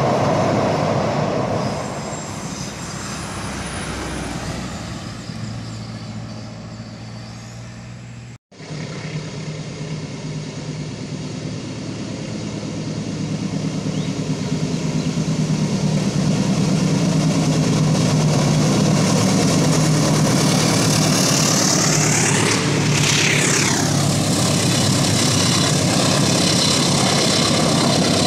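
Passenger train rumbling over a steel truss bridge, fading away. After a sudden cut a diesel-hauled passenger train approaches, growing steadily louder. The locomotive passes close by about two-thirds of the way through with a sweep in pitch, and the coaches roll on past.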